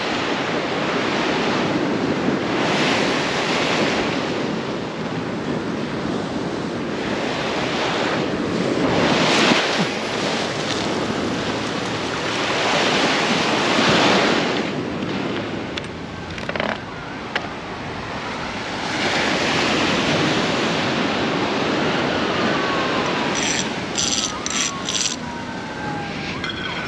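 Ocean surf on the shore: waves swelling and washing in and out every few seconds. A few short, light clicks come near the end.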